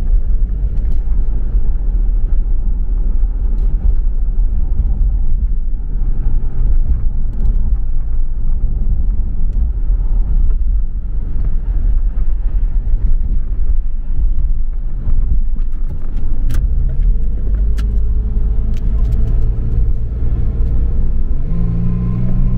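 Road and engine noise inside a Toyota Land Cruiser Prado's cabin on the highway: a steady low rumble, with the engine's note rising slowly over the last several seconds and a few light clicks about three-quarters of the way in.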